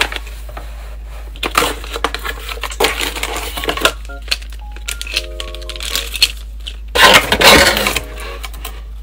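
Cardboard packaging and a plastic bag being handled: irregular rustling and crinkling, with a louder scraping rustle about seven seconds in as a cardboard insert is pulled from the box. Soft background music plays underneath.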